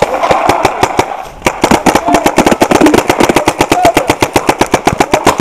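Dye NT11 paintball marker firing: a few scattered shots, then about a second and a half in a fast, steady stream of about ten shots a second.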